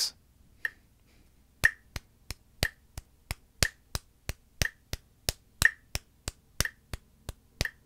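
Hands clapping eighth-note triplets, three even claps to each beat, over a metronome ticking once a second at 60 beats per minute. The metronome ticks alone at first, and the claps come in about a second and a half in.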